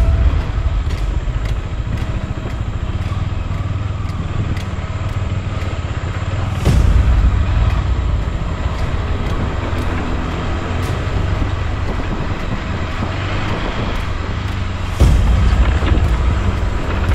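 A KTM 390 Adventure's single-cylinder engine running steadily as the motorcycle rides a dirt track, with heavy wind noise on the microphone. The wind rumble swells louder about seven seconds in and again near the end.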